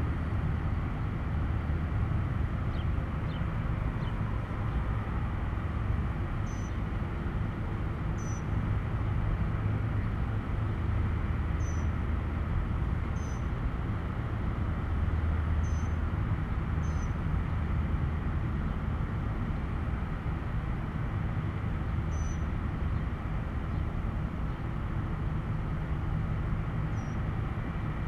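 Steady rumble of nearby road traffic and vehicles, with a faint high chirp repeating every couple of seconds.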